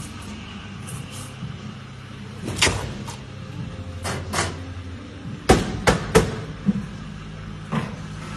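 Barista's equipment knocking and clattering at an espresso machine: scattered sharp knocks, with three loud ones in quick succession about five and a half seconds in, over a steady low machine hum.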